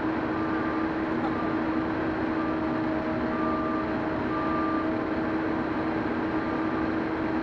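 A fire engine's motor runs steadily at the fire scene, with a constant deep hum and a noisy rumble under it. Short high beeps sound every second or so at uneven intervals.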